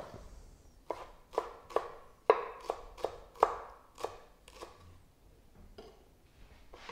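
Kitchen knife chopping a spring onion on a cutting board: about ten sharp knife strikes at roughly two a second, stopping about five seconds in.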